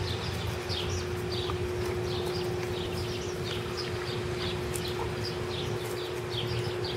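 A bird chirping over and over in short falling notes, a few a second, over a steady low hum, while a Borzoi puppy and an Ibizan Hound play and run on grass without barking.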